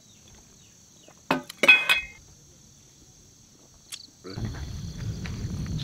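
Crickets chirring steadily. About a second in comes a loud clatter, two knocks with a metallic ring: a steel bowl and spoon set down on a wooden camp table. A steady low noise comes in near the end.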